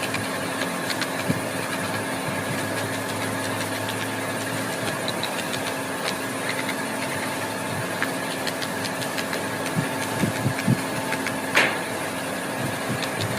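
A machine running with a steady hum, with scattered light clicks and a few louder knocks near the end.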